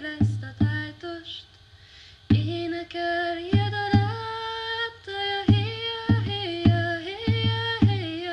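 Hungarian folk-style song in which a woman sings long, held notes over low drum beats.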